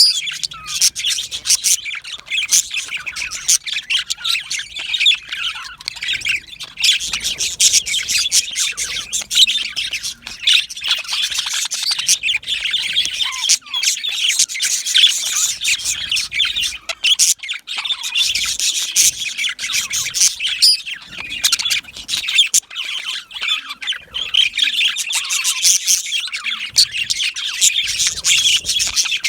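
A group of budgerigars chattering and chirping without a break, a dense stream of warbles, squawks and clicks.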